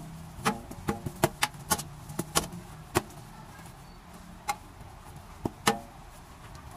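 Sharp knocks and clacks against a stainless steel sink, about a dozen at uneven intervals. Most come close together in the first three seconds and a few more follow later, some with a short metallic ring.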